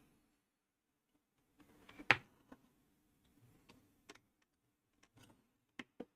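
A few scattered clicks and light taps in a small room, the sharpest about two seconds in, with smaller ones later and quiet gaps between.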